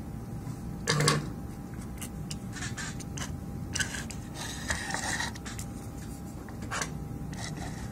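Metal shield cover of a power supply being handled and fitted back in place: a series of clicks, taps and scrapes of sheet metal against the housing, the loudest tap about a second in. A steady faint hum runs underneath.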